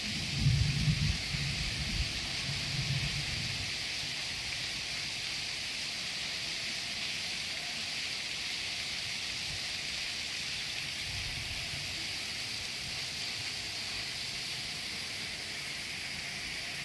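Steady rain falling, an even hiss throughout, with a few short low rumbles in the first few seconds.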